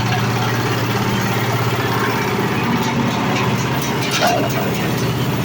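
Areca nut husking machine running with a steady, loud motor drone, with some brief clattering about three to four and a half seconds in.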